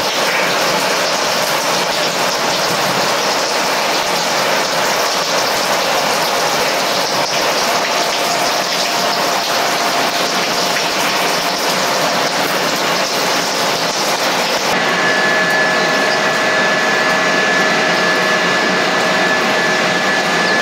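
Airbus A330-243's Rolls-Royce Trent 700 jet engines running, a steady loud rush with a faint whine. The sound changes abruptly about fifteen seconds in, when a higher whistle comes in.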